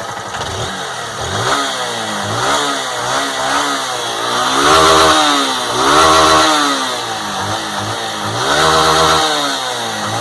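Warm Honda CG 160 Fan single-cylinder four-stroke engine in neutral, with its stock exhaust, revved in a series of throttle blips that rise and fall; the biggest come about five, six and nine seconds in. The owner hears none of the annoying engine noise others report on this model.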